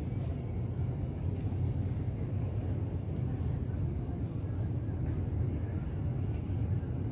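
Steady low outdoor rumble by the bay, with no distinct events.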